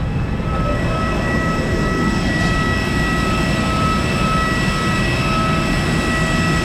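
Steady whine of a jet airliner on the ground, several high tones held over a low rumble.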